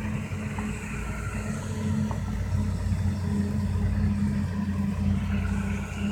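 Tractor's diesel engine running steadily as it pulls a silage trailer away across the field, a constant low drone.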